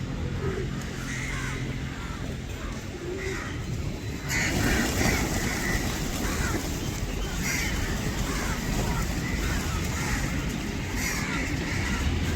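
A large flock of birds calling all at once, many short harsh calls overlapping, over a steady low rumble that gets louder about four seconds in.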